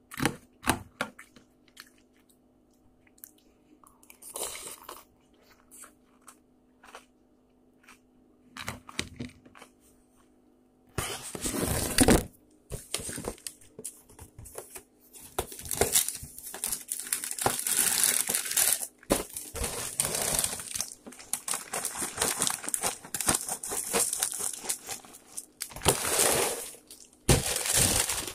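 A spoon clinking in a cereal bowl and crunchy chewing of cereal, as scattered sharp clicks. About a third of the way in, this gives way to a long stretch of crinkling, crumpling and tearing as a printed cardboard box is handled and opened.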